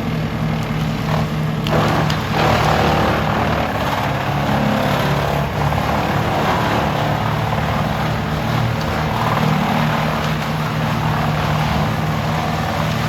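Large 440-horsepower wood chipper running steadily under load, its engine drone mixed with a dense rushing noise, with a couple of sharp knocks about two seconds in.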